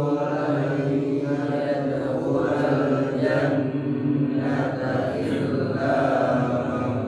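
A man's voice reciting the Quran in melodic tajwid style (tilawah), drawing out long, slowly bending notes with only short breaks.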